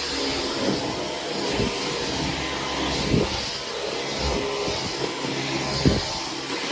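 Dyson V15 Detect cordless stick vacuum running steadily on medium power, a whooshing rush of air with a thin high motor whine, while its anti-tangle brush-bar cleaner head is pushed over the floor. Occasional short low knocks come through.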